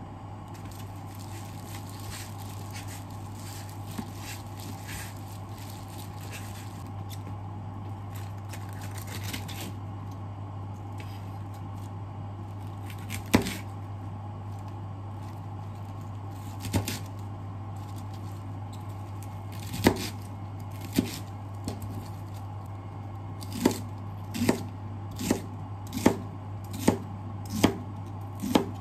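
Chef's knife cutting napa cabbage on a cutting board: a few single knocks of the blade on the board, then a steady run of chops, roughly one every three-quarters of a second, near the end. Soft rustling in the first seconds and a steady low hum underneath.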